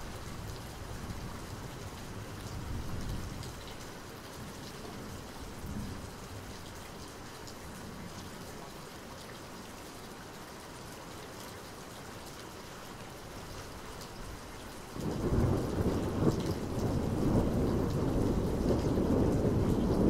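Steady rain falling, then a sudden, much louder low rumble starts about fifteen seconds in and keeps going.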